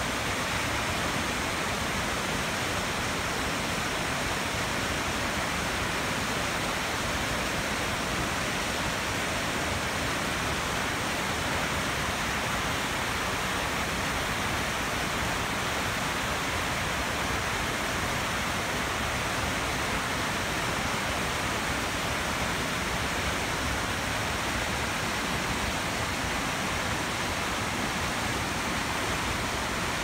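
Mountain creek's white water rushing down a cascade of rock ledges: a steady, unbroken rush of falling water.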